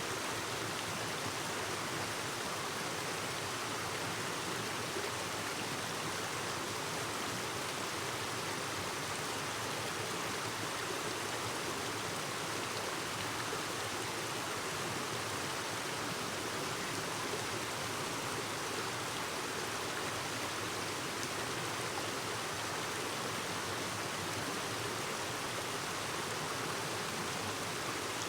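Clear mountain stream babbling steadily over rocks.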